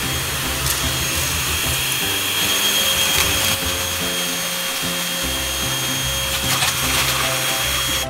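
Handheld vacuum cleaner running steadily, a loud rushing hiss with a high-pitched whine, switching on at the start and off at the end, over background music.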